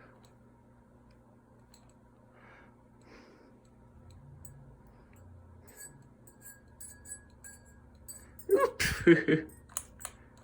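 Ceiling fan running with a faint, steady low hum. Near the end comes a brief, loud vocal sound, then a quick run of sharp clicks.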